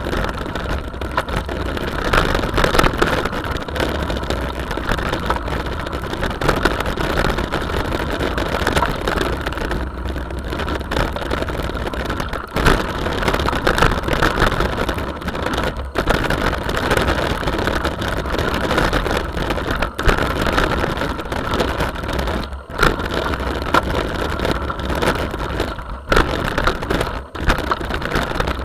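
Wind buffeting the microphone of a camera riding on a mountain bike, with the tyres rolling over a gravel track; the rush rises and dips unevenly with the bumps and gusts.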